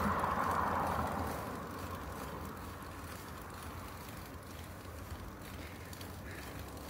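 Steady noise of a bicycle ride on a mountain road, tyres on rough asphalt with air rushing over the microphone, a little louder in the first second or so and then even.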